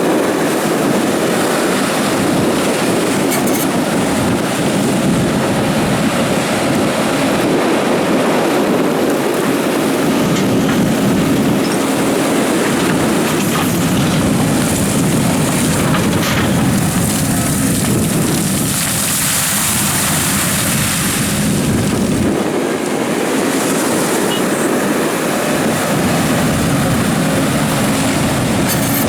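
Doosan DX300 tracked excavator working: its diesel engine runs steadily under load while the hydraulics drive the bucket digging gravel, with a few light clanks. A high hiss comes in for a few seconds past the middle.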